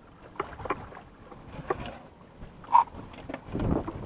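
Small fishing boat on calm water: scattered light knocks and splashy water sounds around the hull, with a short louder rush of noise near the end.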